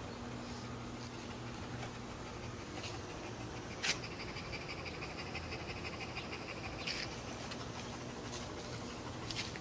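German shepherd mix panting with its tongue out. A sharp click comes about four seconds in, with a thin steady high tone for about three seconds after it, over a low background hum.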